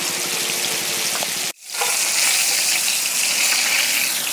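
Squid deep-frying in hot oil in a wok, the oil sizzling steadily. The sound cuts out for a moment about one and a half seconds in, then the sizzling resumes.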